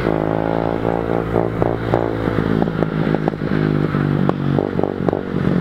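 110cc mini dirt bike engine dropping off a rev and running on unevenly, with a scatter of sharp clattering clicks through the middle and later part.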